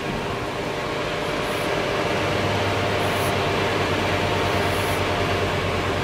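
The fans of a Sanaky pet hair-drying box are blowing steadily, a low hum under an even rush of air, heard with the box's door open. The sound grows a little louder about two seconds in.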